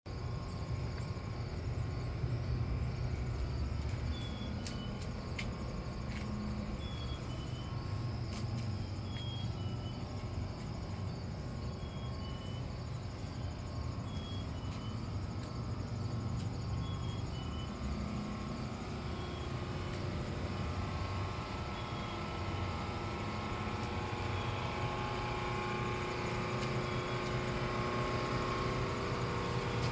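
Esmach baguette moulder running: a steady motor hum, with a short, high two-note tone repeating about every two seconds.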